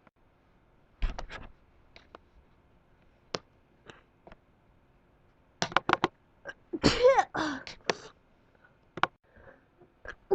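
A woman sneezing from spring allergies. A few quick catching breaths build up to one loud voiced sneeze about seven seconds in, with scattered softer breath and nose sounds around it.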